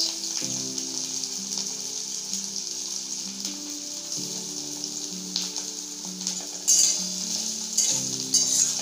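Chopped onion sizzling in hot oil in a kadhai, a steady frying hiss. A spatula scrapes and stirs the pan in a few strokes near the end.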